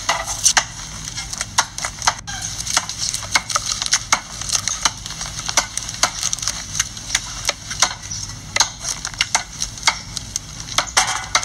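Knives cutting long green beans against a wooden chopping board: a quick, irregular run of sharp taps and clicks, several a second.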